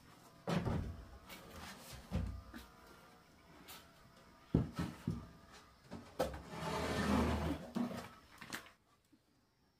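Corrugated roofing sheet being handled and set onto a wooden roof frame: scattered knocks and bumps, a sharp knock about halfway, then a longer scraping rattle of the sheet that stops shortly before the end.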